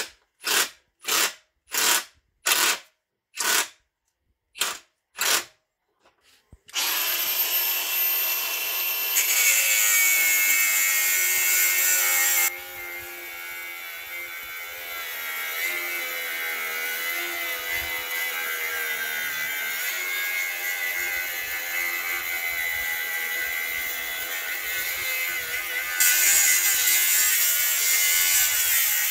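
Angle grinder cutting into a BMW E39 rear subframe. It starts after eight short, evenly spaced bursts of noise, first with a high whine, then drops lower and quieter about midway as the disc bites into the metal, and gets louder again near the end.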